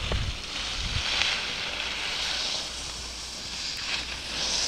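Skis hissing over groomed snow, the hiss swelling with each turn about once every second or so, over wind rumbling on the microphone.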